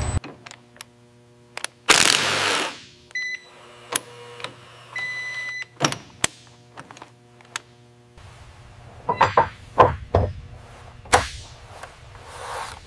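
Assembly-line machinery at work: a sharp hiss about two seconds in, then a short electronic beep and a longer one, and scattered clicks and metallic clunks that bunch together around nine to ten seconds.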